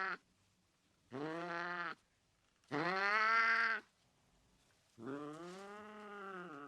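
An angry cat yowling in long, wavering, drawn-out calls: the tail of one at the very start, then three more, the last the longest, sinking in pitch near the end.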